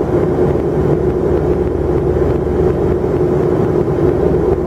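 Steady cabin noise of a jet airliner in flight, heard from inside the cabin: an even rush of engine and airflow noise with a steady droning tone running through it.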